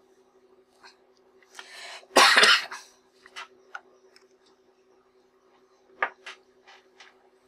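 A person coughs once, loudly, a little over two seconds in, just after a short breath. A few light clicks and taps follow as a glass lens element held in a suction cup is handled and touched with a cleaning swab, several of them near the end.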